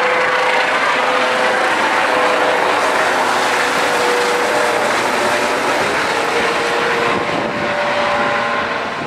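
Air-ambulance helicopter flying low directly overhead, its turbine and rotor running loud and steady with a faint whine. It moves away and gets a little quieter near the end.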